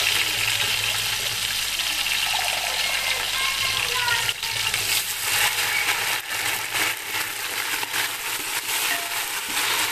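Sliced onions, tomatoes and garlic sizzling in hot oil in a metal cooking pot as a little water goes in, with sharp crackles and spatters from about four seconds in.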